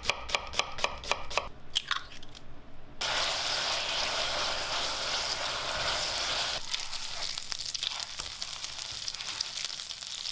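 A kitchen knife chops an onion on a wooden cutting board in quick, regular strokes, then knocks a few more times more slowly. About three seconds in, onions being stirred in a hot frying pan start sizzling loudly. Later a lighter sizzle with crackling comes from hamburger patties frying in oil.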